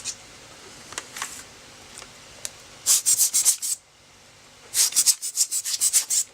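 Blower brush bristles brushing dust off a 4x5 double dark film holder in quick back-and-forth strokes, about eight a second. There are two runs, a short one about three seconds in and a longer one near the end.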